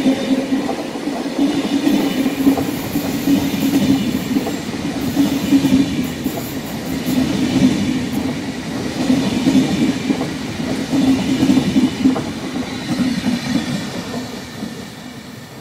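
Vivalto double-deck passenger coaches of a regional train rolling past, with a steady rumble of wheels on rails that swells and eases as the coaches go by. It fades near the end as the rear cab car passes.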